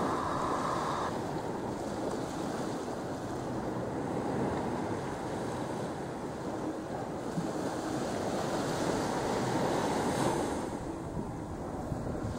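Ocean surf washing onto a sandy beach, a steady rushing wash that swells and eases, with wind buffeting the microphone.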